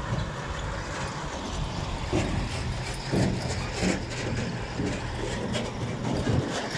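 Heavy diesel dump truck's engine running as the truck drives past on a dirt track. The low engine sound is strongest in the first second, then gives way to irregular construction-site noise.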